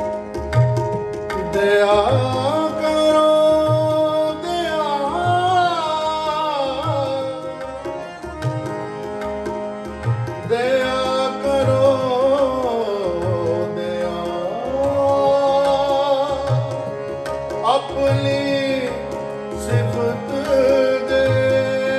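Sikh shabad kirtan: men singing a hymn in a gliding, ornamented melody over harmoniums, with a tabla keeping a steady, even beat.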